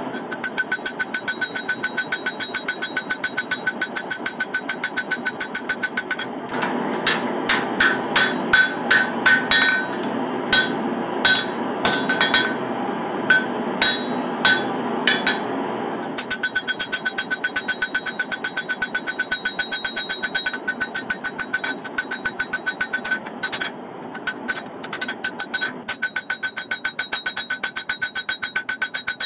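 Hand hammer striking a hot katana blade on a steel anvil to forge its bevels, several blows a second, each with a bright ringing note from the anvil. For a stretch in the middle the blows come heavier and further apart over a steady noise.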